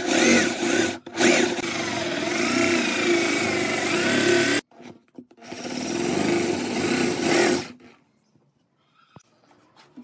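Electric drill boring a hole through the wooden hub of a spoked wheel, its motor pitch wavering as the bit bites into the wood. It runs for about four and a half seconds, stops briefly, then runs again for about two seconds before stopping.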